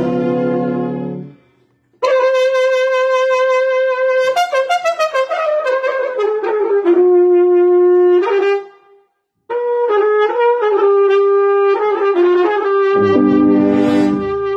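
A valved brass horn with an upright bell playing a slow melody of long held notes, the phrases stepping downward, broken by two short pauses. Near the end a lower-pitched part comes in underneath the melody.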